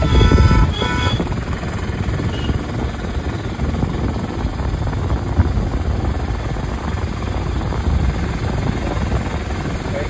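A car horn sounds in two short blasts near the start, a warning at a blind curve, followed by the steady drone of the car's engine and road noise heard from inside the moving car.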